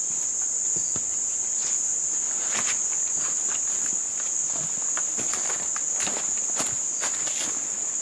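Insects droning in one steady high-pitched note, with scattered soft crunches of rubber-booted footsteps on leaf litter.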